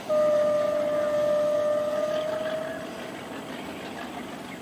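KTMB Class 29 diesel locomotive's horn: one long, steady blast of about three seconds, starting sharply and fading away at the end.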